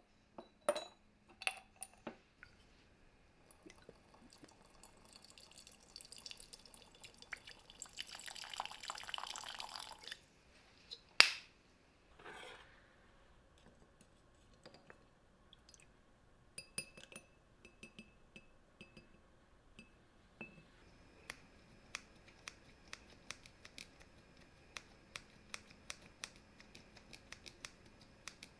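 Small parts dropped into a glass jar, clinking against the glass, then a few seconds of liquid sound in the jar and one sharp glass clink. After that, a long run of light metallic clicks and ticks as the drill motor's brush holder is picked at with a small screwdriver.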